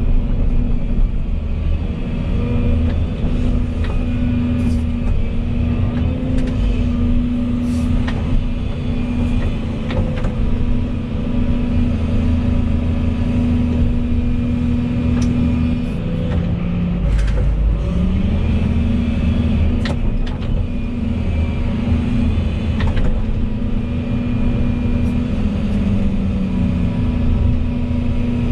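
Volvo EC220E excavator's diesel engine running steadily under hydraulic load while digging, with scattered sharp clicks and knocks. About two thirds of the way through, the engine pitch sags briefly and then climbs back.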